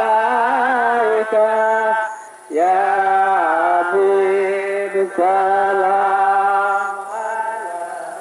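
An Islamic devotional song (sholawat) sung in long, ornamented held notes over a steady low drone. The singing breaks off briefly about two seconds in and fades near the end.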